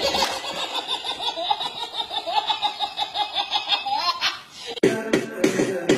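A baby's belly laugh: a long, high-pitched run of quick, rhythmic 'ha-ha' bursts, several a second. It stops near the end, where music with guitar and singing cuts in.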